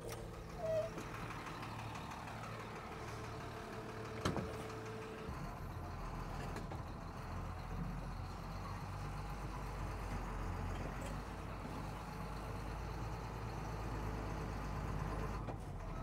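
Dump truck engine running as the truck is moved, louder and heavier from about five seconds in as it pulls. A single sharp click comes about four seconds in.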